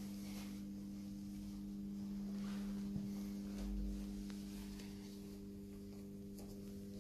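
A steady low electrical hum, with a few faint soft ticks and knocks.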